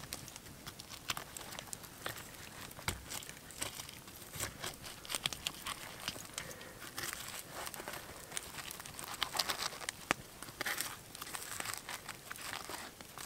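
A knife slicing through roast venison with a crusty outside on a wooden slab: irregular crisp crackling with many small clicks.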